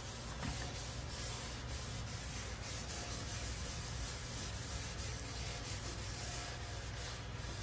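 Gloved hand rubbing wet steel sheet in dilute muriatic acid, scrubbing mill scale off the surface: a steady swishing scrub of repeated strokes, over a steady low rumble.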